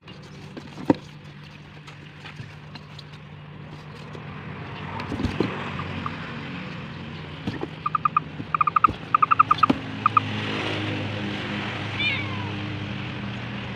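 A steady low hum with scattered clicks and rustles. From about eight to ten seconds in, several quick runs of short, high-pitched calls, then a brief wavering chirp near twelve seconds.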